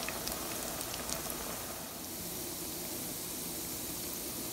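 Potato-and-semolina finger fries deep-frying in hot oil: a steady sizzle of bubbling oil, with a few small pops in the first second or so.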